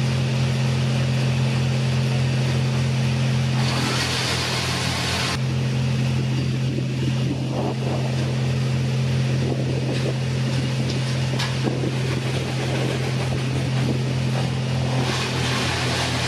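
Chainsaw engine running steadily at high speed. It turns brighter and harsher for about two seconds starting about four seconds in, and again near the end.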